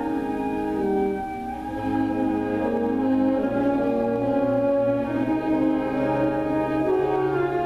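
A school instrumental ensemble playing live under a conductor: a slow piece of long, held chords that change about once a second.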